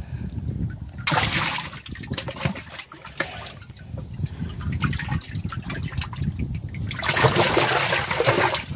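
Water sloshing and splashing in a Triton bass boat's livewell as an arm reaches deep into it to catch a bass. Two louder rushes of splashing come about a second in and near the end.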